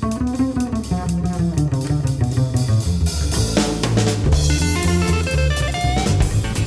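Instrumental background music: plucked guitar over a drum kit and bass line with a steady beat.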